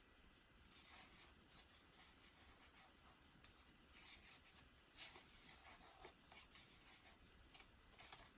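Faint rustling and brushing of the paper pages of a handmade journal being handled, in short soft scrapes: one about a second in, a few around four to five seconds, and one near the end.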